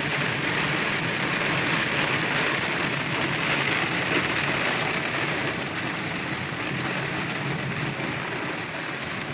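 Steady noise inside a car's cabin driving in heavy rain: rain hitting the roof and windshield, mixed with wet tyre noise and the car's engine. It gets a little quieter in the second half.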